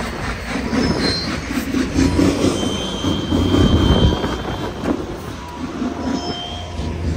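Heavy machinery running with a loud rumble, with short high metallic squeals coming and going.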